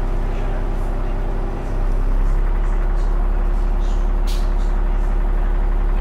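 ADL Enviro400 double-decker bus's diesel engine running under way, with a steady tone held over it; it grows louder about two seconds in as it pulls harder. A short hiss comes through a little past the middle.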